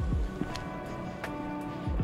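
Background music: sustained chords over a deep bass drum whose pitch drops quickly, struck at the start and again near the end, with light ticking percussion.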